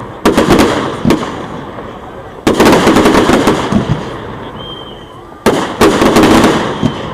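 Fireworks going off in a display: sharp bangs about a quarter second in, around one second, at two and a half seconds and again at five and a half seconds, each rolling off into a long echoing rumble.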